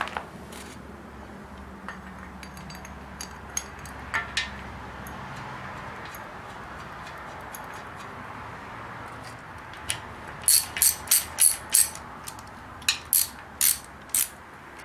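Hand tools at work on a bare V8 engine block as mounting-bracket bolts are fitted and tightened: scattered metal clicks and clinks, then two runs of sharp clicks at about three a second in the second half.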